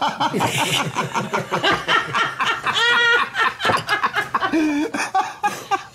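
A group of people laughing together, with one high-pitched laugh about three seconds in.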